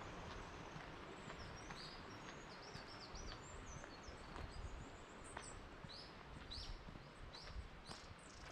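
Small birds calling in the woods, many short high chirps that fall in pitch, coming thickly from about a second in, over a steady hiss of running stream water. Faint footsteps on a gravel path tick underneath.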